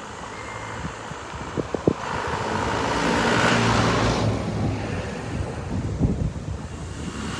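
A motor vehicle passes on the road, its engine and tyre noise swelling to a peak about three and a half seconds in and then fading, with wind on the microphone throughout.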